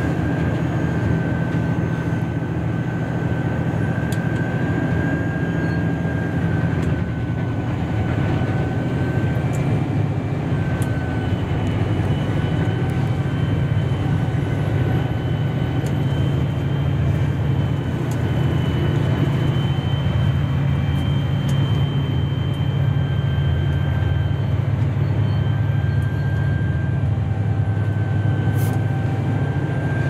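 Engine-driven wood chipper running steadily, with a low engine drone and a steady high whine over it.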